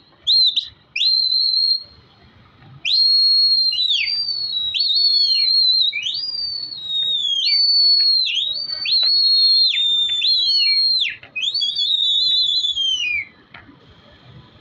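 Loud, high whistling, the calls of a pigeon flyer working his flock in the air: a few short whistles at first, then from about three seconds in a near-continuous string of long held notes, each ending in a drop in pitch, that stops shortly before the end.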